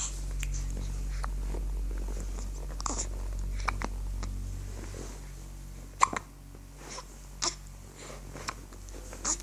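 A baby hiccuping: short, sharp hiccups at irregular intervals, one every second or two, the loudest about six seconds in.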